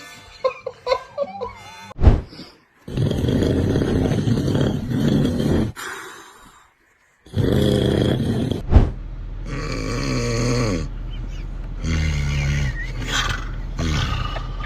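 Loud human snoring in several long, rough breaths, spliced from different clips with abrupt cuts and a second or so of silence about halfway through.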